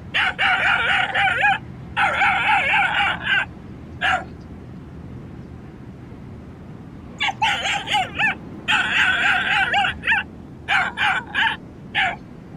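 An animal calling: loud, high, wavering cries lasting a second or so each. One group comes in the first four seconds and another follows after a pause of about three seconds.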